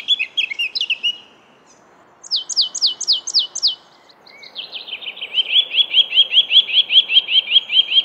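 The last of a blackcap's warbling song, then the simple songs of a marsh tit and a Eurasian nuthatch. The second part is a short series of about seven quick falling notes. The third is a longer run of some twenty rising notes, repeated evenly and growing louder.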